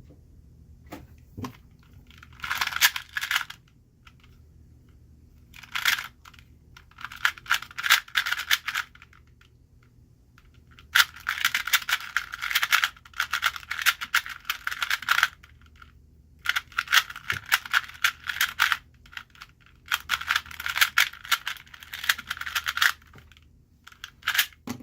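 Cyclone Boys 2x2 speed cube being turned fast during a timed solve: rapid clicking and clacking of its plastic layers, in bursts of a second to four seconds with short pauses between them.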